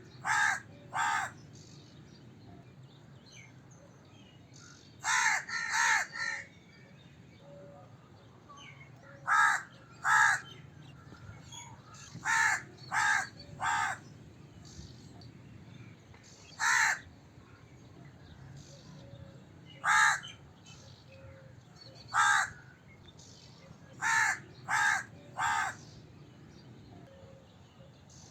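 A crow cawing: harsh caws in short series of one to four, with pauses of a few seconds between the series.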